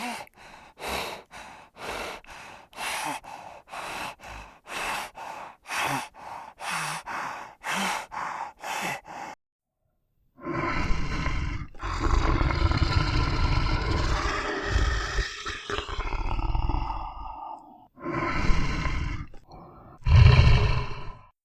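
A steady clip-clop of hooves, about two to three beats a second, then a big cat's long, deep roars and growls.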